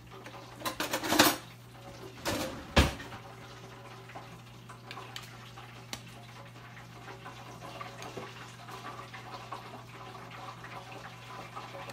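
Dishes and utensils clattering: several knocks and scrapes in the first three seconds, the loudest about a second in and just before three seconds. After that comes a faint steady hiss with a low hum under it.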